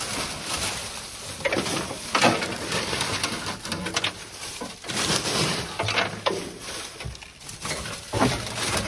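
Irregular rustling, scraping and light knocks of hands working through debris and parts.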